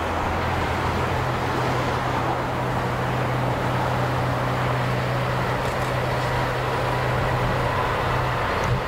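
NR class diesel-electric locomotive hauling a passenger train, a steady low engine hum over a constant rushing rail and rolling noise.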